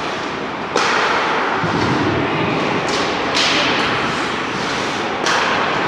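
Ice hockey play in a rink: about four sudden sharp hits, each trailing off in a hiss, over a steady wash of skates on ice and arena noise.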